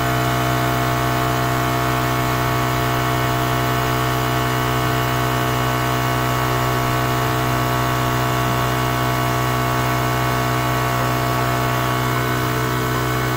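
FoodSaver vacuum sealer's pump motor running with a steady hum. The pump runs but is not drawing the air out of the onion bag, because the bag's open end is pushed up too high in the vacuum channel.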